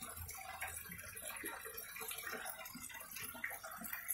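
Water trickling and splashing steadily into a fish pond, with small irregular drips.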